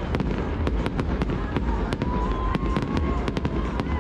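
Fireworks display: a rapid run of sharp crackling pops, several a second, over the deep, continuous rumble of shells bursting.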